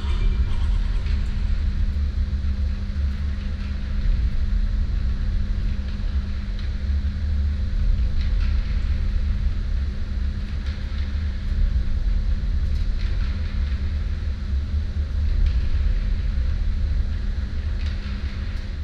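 Electric concrete mixer running: a steady low rumble with a constant hum, and faint ticks and scrapes here and there.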